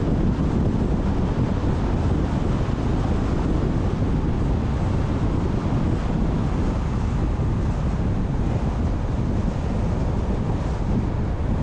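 Steady wind and road noise from a car driving along a highway, mostly a low rumble with wind buffeting the microphone.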